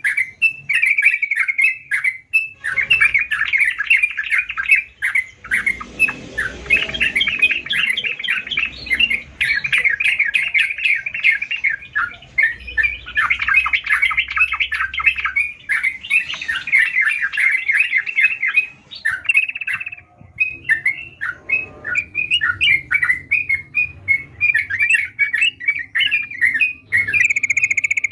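Yellow-vented bulbul singing hard: a fast, continuous run of bright chattering notes that breaks off briefly about twenty seconds in, then resumes.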